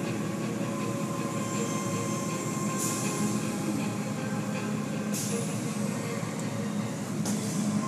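Automatic tunnel car wash running: a steady mechanical hum from the wash machinery, with short bursts of water-spray hiss about three seconds in, about five seconds in, and near the end.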